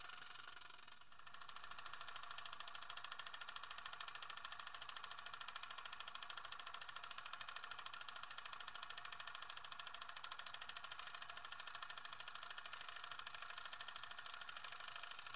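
Film projector running: a rapid, steady mechanical clatter with a light hiss, briefly dropping away about a second in.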